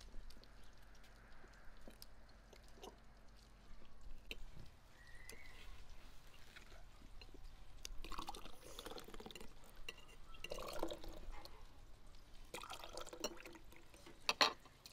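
A red berry drink poured from a glass jar into glass tumblers in three splashing pours, one after another, in the second half. Faint clicks of cutlery on plates come first, and there is a sharp click near the end.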